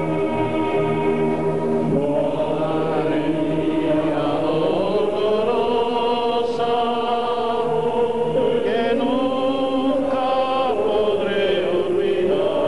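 A choir singing a slow hymn in long, held notes that change every second or two.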